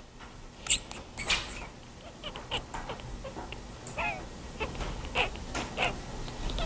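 Scattered light taps and a few short, high squeaks against quiet room tone.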